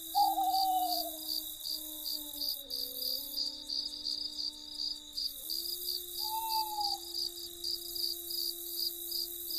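Crickets chirping steadily, about three chirps a second, over a soft sustained drone of low tones that shifts pitch a couple of times. Two short, wavering whistled calls stand out, the louder one right at the start and another about six seconds in.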